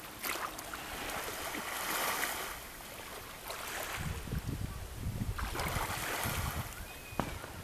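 Shallow sea water lapping and splashing around a man wading and handling a cast net, with wind on the microphone that gusts into a low rumble about halfway through.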